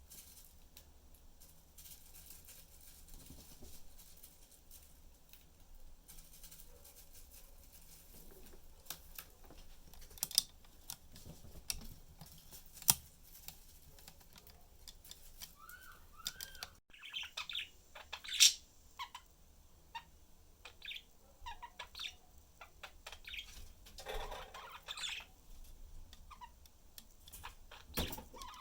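Pet budgerigars: scattered sharp clicks and taps, with short chirps and calls that become busier in the second half.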